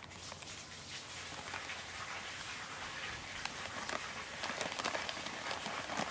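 A crowd of stray cats jostling and eating around a person hand-feeding them: steady rustling and scuffling with many small clicks and scrapes.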